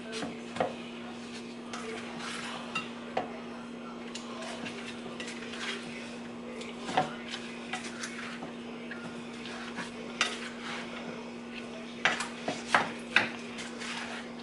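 A utensil stirring peach cobbler filling (peaches with brown sugar and spices) in a mixing bowl: a soft wet stirring with scattered clinks and knocks against the bowl, coming quicker near the end.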